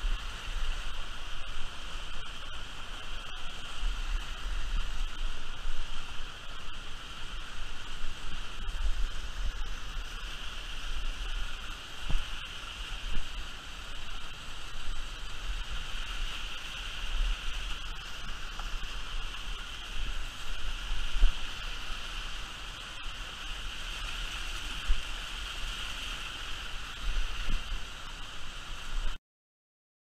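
Rushing river water running over cascades, a steady hiss, with uneven low rumbling on the microphone. It cuts off suddenly near the end.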